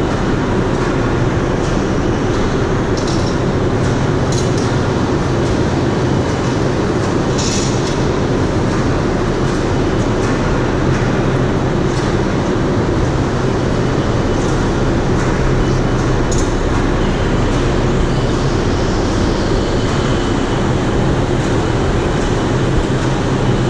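Overhead bridge crane running as it lifts a steam turbine's upper inner casing: a steady, loud mechanical rumble with a low hum. A few light metallic clinks come through now and then.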